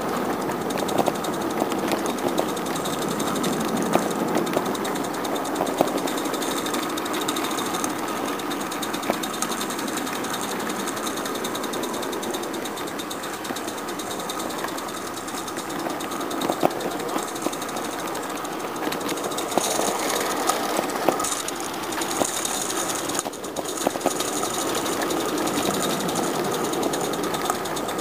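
Small live-steam garden-railway locomotive (Roundhouse Elsa) running: rapid exhaust beats and steam hiss, with occasional sharp clicks.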